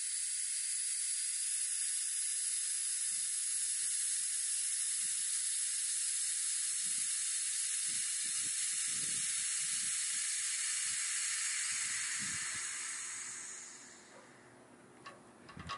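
Compressed air hissing steadily out of the truck's air-bag suspension as one side is aired out and deflated, dying away near the end.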